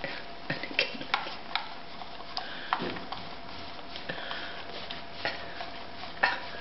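Standard Schnauzer licking and smacking yoghurt from a plastic pot, with a galah's beak picking at the same pot: irregular wet clicks and ticks, the sharpest about six seconds in.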